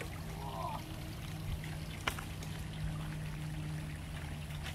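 Water trickling, over a steady low hum, with a few light clicks.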